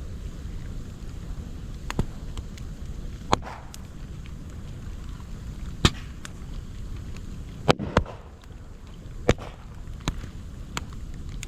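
Moso bamboo burning in an open fire, with sharp, irregular cracks and pops, about seven of them, over a low steady rush. The pops are typical of bamboo, where heated air and moisture burst out of the sealed culm sections.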